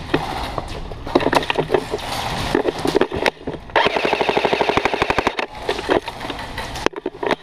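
Airsoft guns firing on full auto: several bursts of sharp, rapid shots, the longest a steady burst of roughly a dozen shots a second lasting about a second and a half, about four seconds in.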